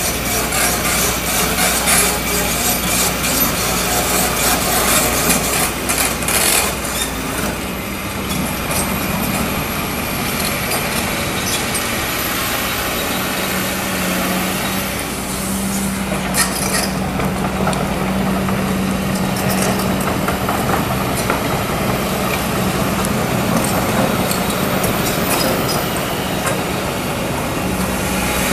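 Kobelco SK200 hydraulic excavator's diesel engine running steadily under load as it digs and swings, its note growing stronger about halfway through. Scraping and clattering of the steel bucket and tracks in the soil stand out during the first several seconds.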